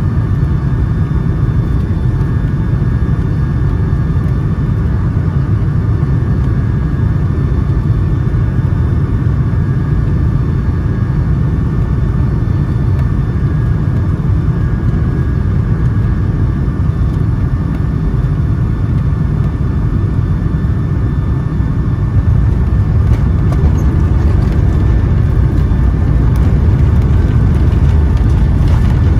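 Steady low rumble of a Boeing 757-200's engines and airflow heard inside the passenger cabin, with a few faint steady whining tones above it; it gets slightly louder about two-thirds of the way through.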